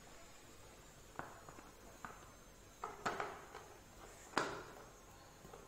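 Several short plastic knocks and clicks as a spin mop's plastic head plate is handled and pressed into its microfiber refill, the loudest a little over four seconds in.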